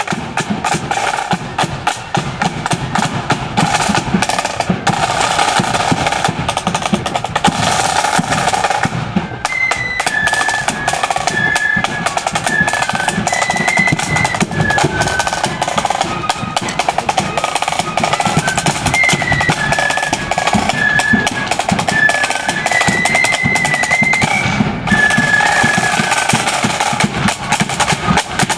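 Marching flute band: snare drums playing rolls over a steady bass drum beat, then about ten seconds in the flutes come in with a high tune over the drums.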